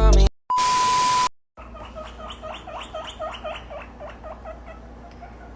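A short beep over a burst of hiss, then a small animal's rapid run of short rising chirping calls, about five a second, fading near the end.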